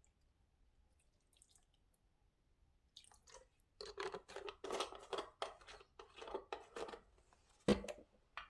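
Wet mixture of mashed banana, egg, honey and milk being worked in a mixing bowl: a quick, irregular run of soft squelchy clicks starting about three seconds in. Near the end comes a single sharp knock, the loudest sound.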